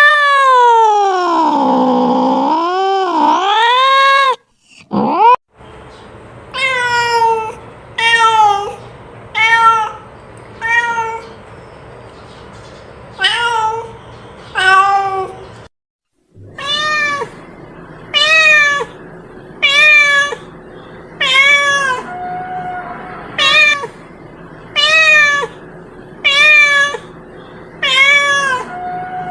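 A cat meowing: first one long, wavering meow lasting about four seconds, then a run of short meows, one about every second and a half, broken once by a short pause about halfway through.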